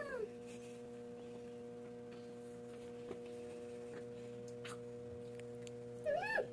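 Steady low electrical hum made of several even tones, with a few faint clicks. Near the end comes a short rising-and-falling vocal sound.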